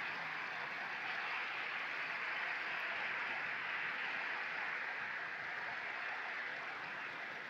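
Small sea waves washing steadily over a shingle beach, a continuous rushing hiss that eases slightly near the end.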